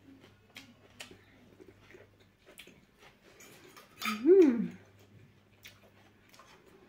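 Faint clicks of cutlery and dishes during eating. About four seconds in, one short, loud closed-mouth "mmm" rises and falls in pitch, from an eater with a mouthful of food.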